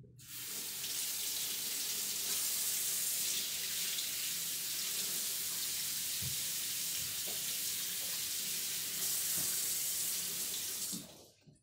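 Water running steadily from a tap into a sink as an egg is rinsed under it, with a few faint knocks; the tap is shut off near the end.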